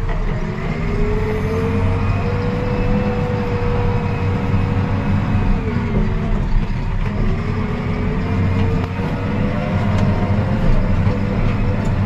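JCB backhoe loader's diesel engine running steadily, heard from inside the cab, with a steady whine over the engine hum that dips in pitch briefly about six and seven seconds in.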